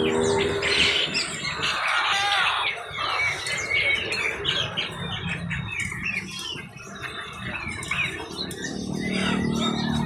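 Many caged birds chirping and squawking at once, a dense chorus of short overlapping calls.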